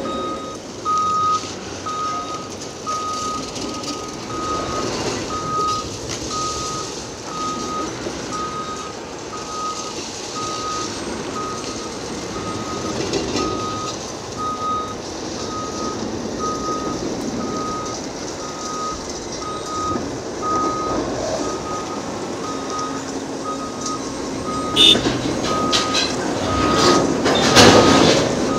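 Back-up alarm on heavy construction machinery beeping steadily, about once a second, over diesel engine noise. Near the end there is a burst of sharp clattering knocks.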